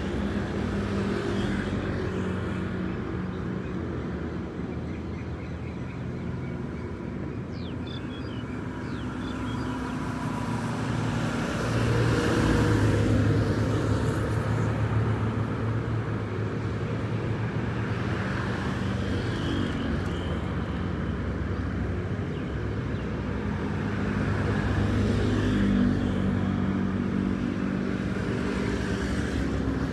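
Motor traffic going by: a steady engine hum and road noise that swells and fades as vehicles pass, loudest about twelve seconds in and again around twenty-five seconds.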